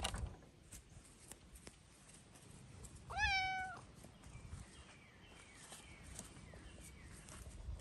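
A cat meows once, a single short call about three seconds in that rises quickly and then holds its pitch.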